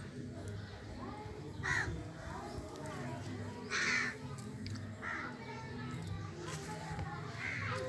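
Crow cawing outdoors, about four short caws a second or two apart, the one about halfway through the loudest.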